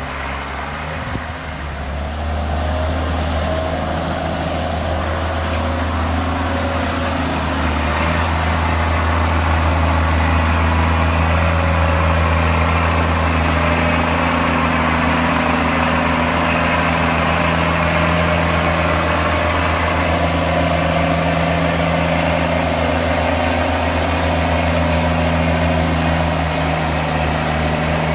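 County 1164 Turbo tractor's turbocharged diesel engine running steadily while buck raking maize, building up a little over the first several seconds and then holding an even pitch.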